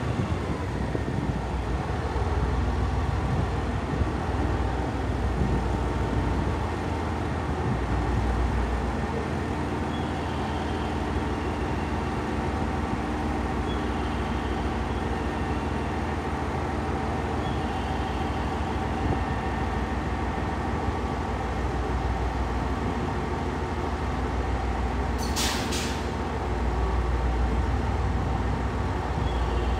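KiHa 121 diesel railcar's engine running at idle, a steady low diesel rumble that swells a little at times. About 25 seconds in there is a short burst of hissing air.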